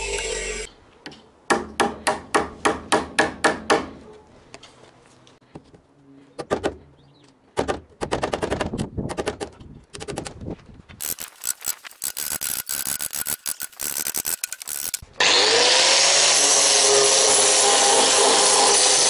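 Power tools in turn on pine planks. Early on there is a quick run of about ten sharp knocks. In the middle a cordless drill runs in short bursts, driving screws into the wood. About fifteen seconds in, a corded power tool spins up with a rising whine and runs loud and steady for about four seconds.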